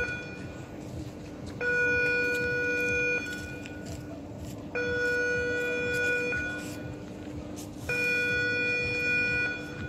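Warning signal of a moving footbridge sounding in repeated blasts: a steady, buzzer-like multi-tone beep about a second and a half long, three times, about every three seconds. A steady low hum runs underneath.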